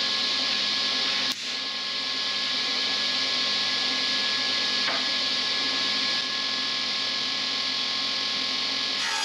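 Stationary woodworking machine running steadily with a high, even whine while a long board is fed through it; a short sharp click about a second in.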